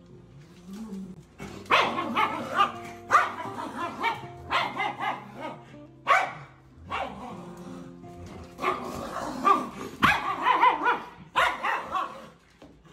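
Dogs play-fighting, giving loud bursts of barks and growls every second or two.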